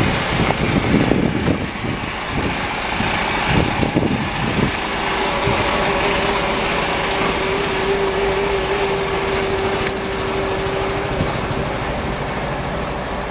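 Mercedes-Benz Tourismo coach's diesel engine idling close by, with a steady hum from about five seconds in. Irregular low bumps from the camera being carried in the first few seconds.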